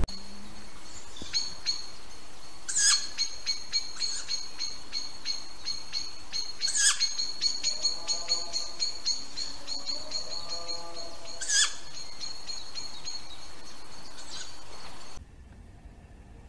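Woodland birdsong: a high, rapid trilling chirp runs on, with three louder, harsh calls about four seconds apart and a lower call in the middle. It cuts off suddenly about a second before the end.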